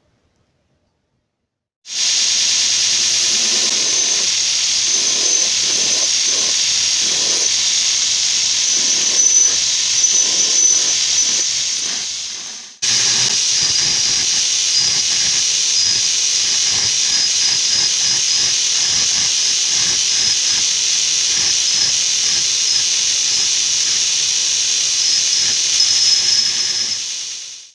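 Loud steady hissing in two long stretches, each starting abruptly and fading away, with its strength high in pitch.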